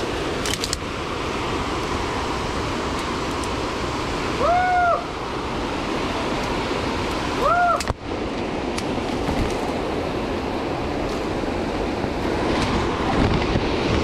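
Steady rush of a waterfall. Two short calls that rise and then fall in pitch come through it, about four and a half seconds in and again about three seconds later.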